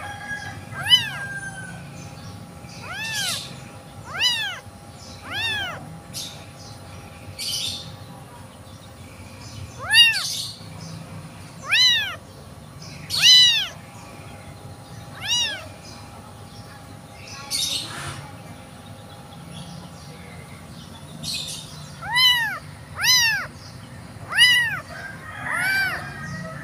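Very young tabby kitten meowing over and over, about a dozen short, high-pitched meows that rise and fall, in clusters with a pause of several seconds in the middle. It is an abandoned kitten crying on its own, without its mother.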